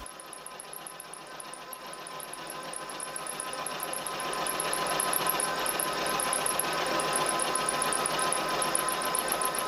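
Vertical milling machine running, its end mill cutting the end of a metal rod held in a vise down to a rectangular section. A steady machining noise with a constant tone, growing louder over the first five seconds, then holding steady.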